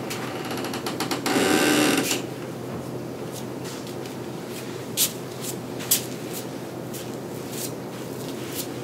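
A door is opened with a fast rattling creak that lasts about two seconds. Footsteps follow across the floor as separate sharp taps, two of them louder about five and six seconds in, over a steady low hum.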